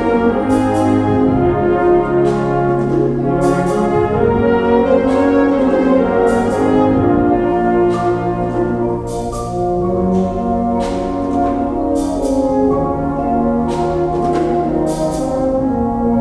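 Concert wind band playing held, shifting brass chords, with sharp percussion strikes at irregular intervals.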